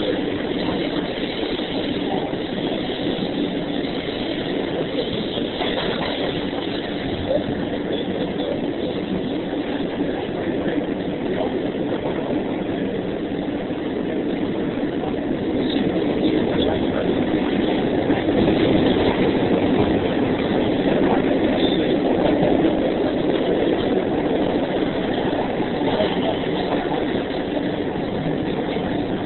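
Passenger train in motion, heard from inside the car: a steady rumble and rattle that grows somewhat louder around the middle.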